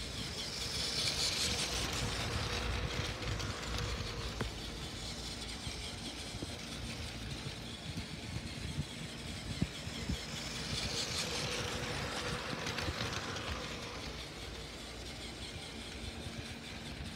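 Battery-powered Plarail toy train's small electric motor running as the train goes round its plastic track, a high whine that swells twice, about a second in and again about eleven seconds in.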